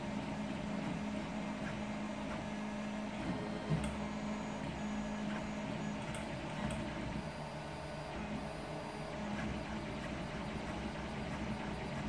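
Home-built CoreXY 3D printer running a print: its stepper motors whine and shift in pitch as the head moves in X and Y, over the steady hum of the cooling fan running at full speed. One short click about four seconds in.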